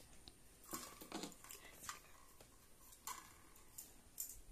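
Faint, scattered clicks and scrapes of a metal spoon against a sizzler platter and a ceramic plate as fried rice is spooned out.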